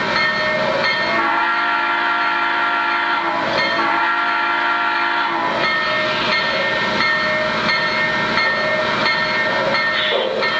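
Lionel Legacy Southern PS-4 model steam locomotive's sound system blowing two long chime whistle blasts, the first about a second in and the second just after it ends, over the steady sound of the train running.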